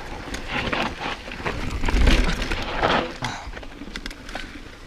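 Mountain bike descending a dirt trail: tyres rolling over dirt and stones, with rattling and knocking from the bike over bumps and wind rumble on the handlebar-mounted camera's microphone, loudest about two seconds in.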